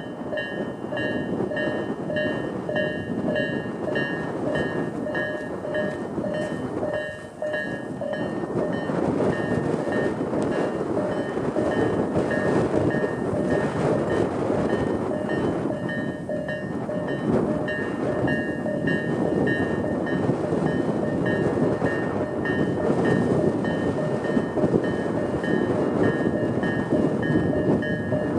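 Electronic level-crossing warning bells of the slow-tempo Tobu type ringing in an even, repeating pattern. From about eight seconds in, a Tobu 10030-series electric train passes over the crossing with loud wheel-on-rail noise, and the bells keep ringing beneath it.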